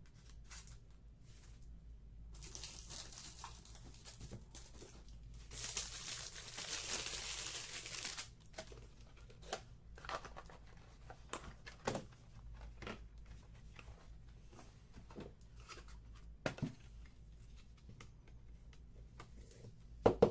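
Paper and plastic trading-card packaging rustling and tearing, loudest for a few seconds in the middle, followed by light clicks and taps of cards being handled.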